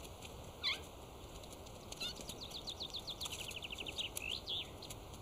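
A songbird singing in woodland: one falling whistle about a second in, then a phrase of short high notes that speeds into a fast trill and ends with a rising flourish.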